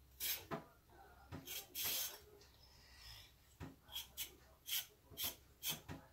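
A carrot being peeled: a run of short scraping strokes, irregular at first, then settling into a steady rhythm of about two a second.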